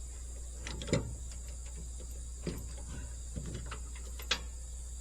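Scattered light metal clicks and knocks from a chain and ratchet binder being worked while tightening a load down, the loudest about a second in and near the end, over a steady insect drone.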